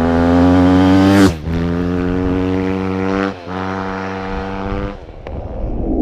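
Dirt bike engine revving hard as it accelerates up through the gears. The pitch climbs, drops sharply at each upshift, about a second in and again past the halfway point, and the sound fades near the end.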